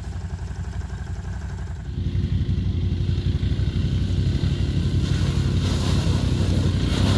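An ATV engine running as a quad drives through a deep mud hole. The sound steps up about two seconds in and then grows steadily louder as the machine comes closer.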